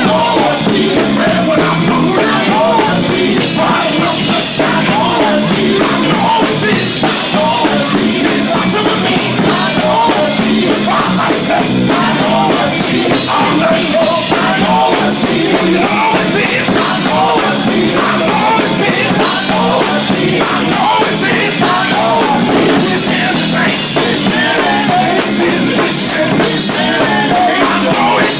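Live gospel band music with a drum kit playing steadily and loudly throughout, the instruments and any voices blended into one dense mix.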